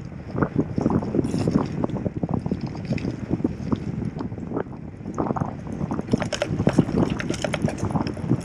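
Constant irregular 'taca, taca, taca' clatter of a loose Allen key rattling in a gravel bike's top-tube bag, over the rumble of tyres on a bumpy dirt road.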